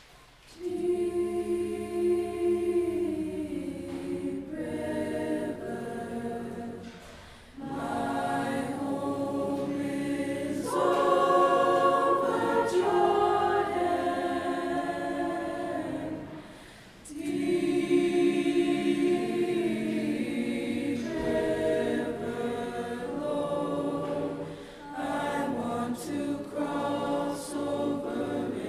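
Mixed-voice choir singing unaccompanied, in long sustained phrases with short breaks between them; the singing begins about a second in.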